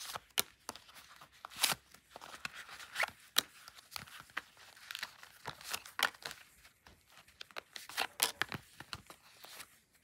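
Plastic cards being slid one at a time out of the tight pockets of a leather card wallet and handled, making a string of short scrapes and clicks, several a second.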